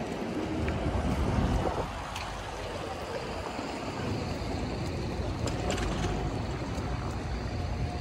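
Wind with the low rumble of distant thunder, swelling about a second in and easing off just before two seconds.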